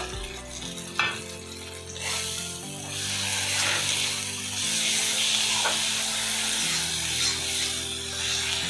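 Onion-tomato masala with ground spices sizzling in a hot kadai, with one click about a second in. The sizzle gets louder about three seconds in, over background music with held chords.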